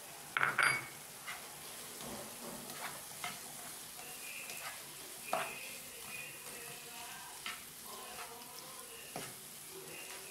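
Chopped onion, capsicum and spring onion stir-fried in sauce in a nonstick frying pan: steady sizzling under the repeated scrape and clack of a slotted spoon against the pan. A louder clatter comes about half a second in.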